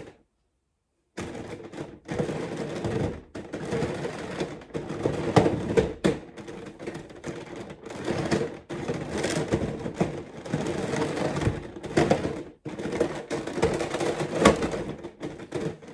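Giant 3x3 Rubik's cube being turned by hand: its plastic layers clack and rattle in quick, continuous turns, starting about a second in.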